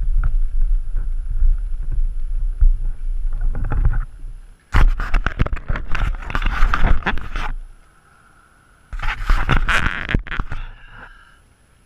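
Air buffeting the plane-mounted camera's microphone: a low rumble, then two loud rushes of air noise of about two to three seconds each. Each rush starts abruptly and trails off.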